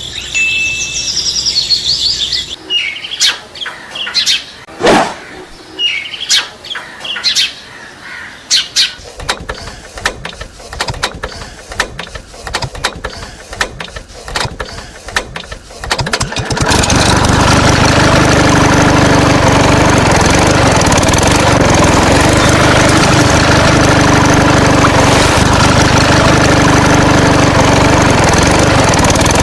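Scattered clicks and knocks with a few short chirps, then about two-thirds of the way through a steady engine-like drone starts suddenly and runs on evenly.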